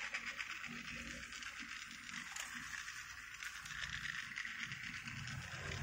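Battery-powered plastic toy train running along plastic track, its small electric motor and gears giving a steady, high-pitched whirring buzz.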